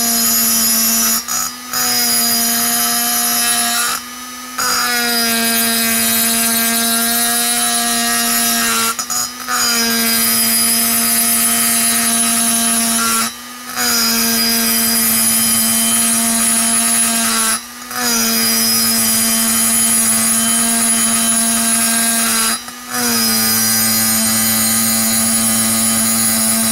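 Handheld rotary tool with a grinding stone running at a steady high whine, grinding inside the exhaust port of an aluminium chainsaw cylinder. The sound drops out briefly about six times as the cut eases off, then picks back up. Near the end the tone changes, the sign that the stone has reached the edge of the bore and is cutting into the Nikasil plating.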